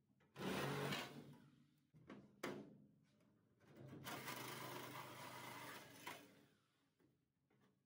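Yellow cordless power tool running in short bursts against the sheet-metal pickup bed: a loud burst about half a second in, a sharp metal clank at about two and a half seconds, and a steadier two-second run from about four seconds in.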